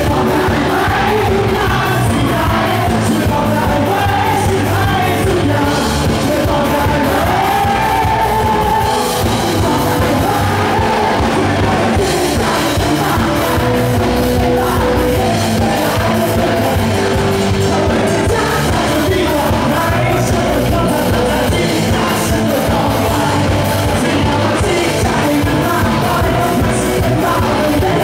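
Live rock band playing loudly: electric guitars and a drum kit under a male lead singer, with some shouted vocals.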